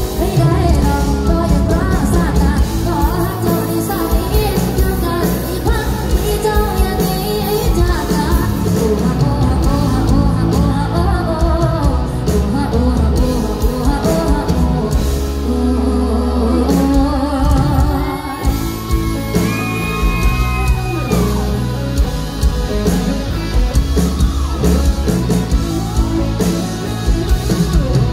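A live band plays a pop song through a loud PA, with a woman singing lead over keyboard, heavy bass and drums. The bass and drums ease back briefly about two-thirds of the way through.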